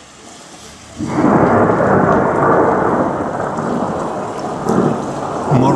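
Thunder: a sudden loud crack about a second in that rolls on as a long rumble, slowly fading, over the steady hiss of rain.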